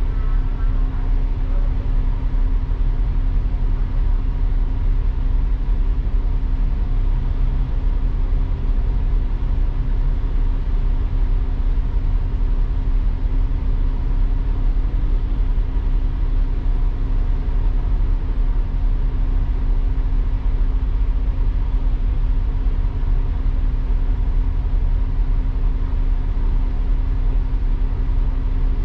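Upper-deck interior of a KMB double-decker bus under way: a steady engine and road rumble with a constant hum, unchanging throughout.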